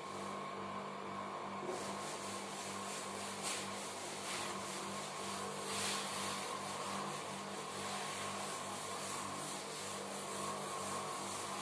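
Chalkboard duster rubbing across a chalkboard in repeated wiping strokes, over a steady background hum.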